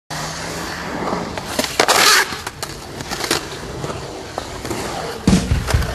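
Skateboard wheels rolling on a concrete bowl with scattered clacks, and a loud scrape about two seconds in. Music with a heavy low beat comes in near the end.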